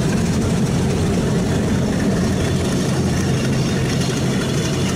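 Bangladesh Railway diesel-electric locomotive's engine running with a steady low drone.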